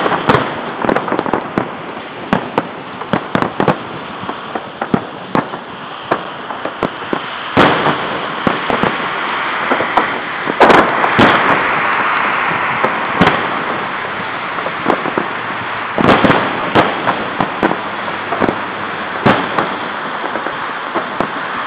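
Aerial fireworks shells bursting in quick succession: frequent sharp bangs over a continuous crackle, densest and loudest about ten to twelve seconds in.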